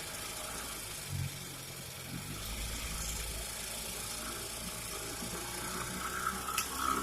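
Goodyear Sea Bee 5 outboard motor running steadily at low throttle, with a short click near the end.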